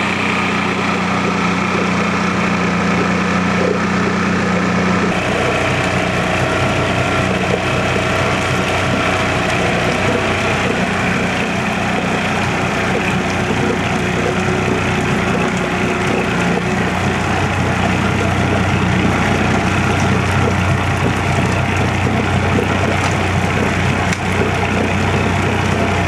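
Johnson 35 hp two-stroke outboard motor running steadily with its leg in a test tank of water.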